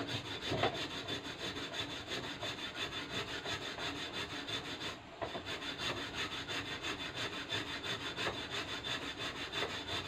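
Steady, rhythmic scraping, about five strokes a second, with a short break about five seconds in.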